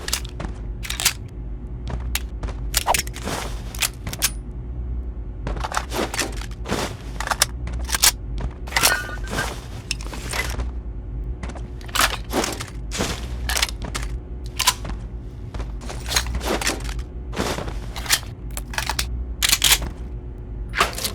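Recorded gun-reload sound effects for assault rifles and light machine guns: a series of separate metallic clicks and clacks of magazines and bolts being worked, over a steady low hum.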